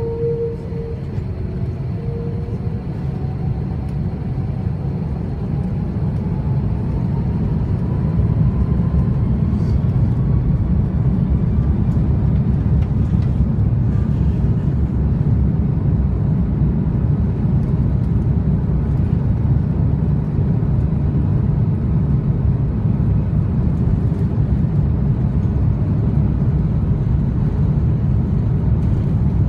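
Airbus A330-200 jet engines spooling up to takeoff thrust, heard from the cabin over the wing, with a whine that rises over the first several seconds and grows louder. The engines then hold a loud, steady run over a low rumble as the airliner accelerates down the runway on its takeoff roll.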